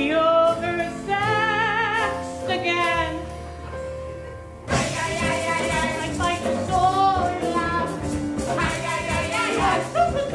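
A woman singing with vibrato on held notes over a small band. About halfway through it cuts abruptly to a different, livelier number, again a woman singing, over busier backing with quick percussion.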